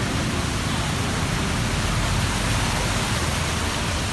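Heavy rain pouring in a steady hiss onto a flooded street.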